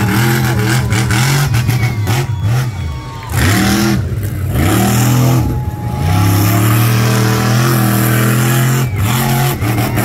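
Monster truck engine revving hard, its pitch climbing and falling as the throttle is opened and eased. It dips twice and is held high for several seconds in the second half.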